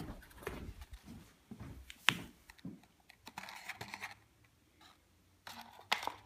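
Handling noise: scattered light taps, clicks and rustles, with one sharp click about two seconds in and a quiet stretch past the middle before the rustling resumes.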